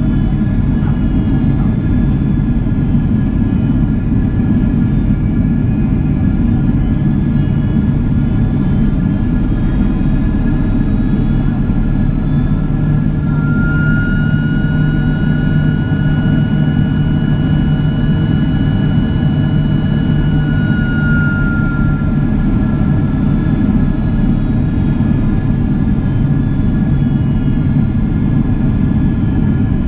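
Cabin noise of a Boeing 767-400ER in flight, heard from inside the forward cabin: a steady rush of airflow under the even hum and whine of its General Electric CF6 turbofans. A steady high tone swells in about twelve seconds in and fades out again some ten seconds later.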